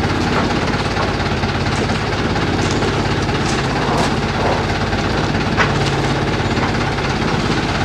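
An engine running steadily close by, a rough rapid pulsing with a slight rise in pitch past the middle.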